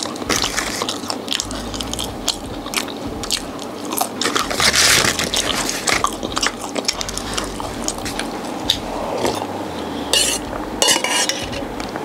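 Close-up eating sounds: biting and chewing crunchy fried food, with small clicks and clinks of cutlery against a dish. There are louder crunchy bursts about five seconds in and again near ten seconds.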